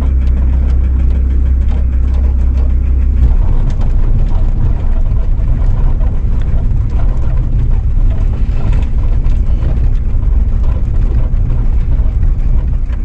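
Car interior noise while driving slowly: a steady low engine and road rumble. It changes character about three seconds in.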